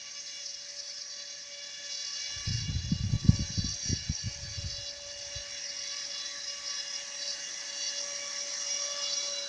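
Homemade RC boat's small motor running with a steady high whine. About two seconds in, a burst of low rumbling thumps lasts for a few seconds over it.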